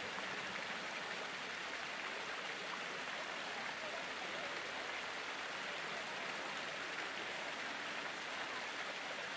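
Water fountain with rows of jets splashing steadily into a pool.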